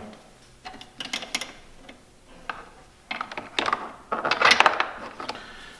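Handling noise as a small camera and its cable are fed through a plastic front grille: scattered clicks and rustling scrapes, busiest from about three to five seconds in.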